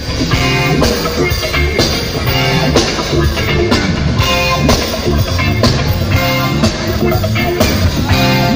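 Funk band playing live through a concert PA: electric guitar, keyboards and drum kit with a steady beat.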